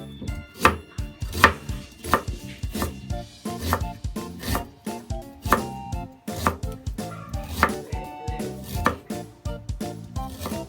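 Knife chopping on a cutting board, slow separate chops roughly once a second, over background music.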